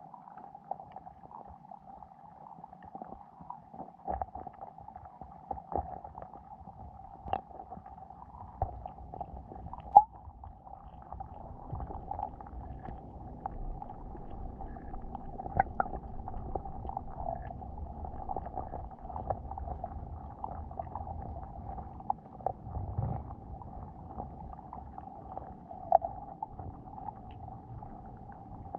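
Underwater sound heard through a GoPro's waterproof housing on a lake bed: a steady muffled hum with a low rumble that grows louder about halfway through. Scattered sharp clicks and knocks sound over it, the loudest about ten seconds in, as hermit crabs and other small animals move around the camera.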